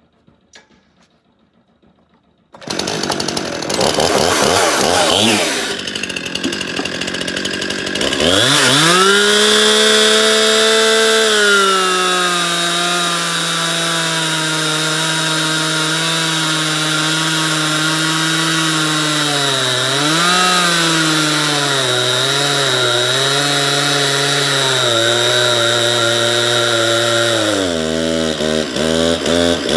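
Gas chainsaw starts about two and a half seconds in and is revved up, then runs at high speed while plunge-cutting a slot into the end grain of a 10x10 timber post. The engine pitch sags and wavers under the load of the cut, and drops and fluctuates near the end.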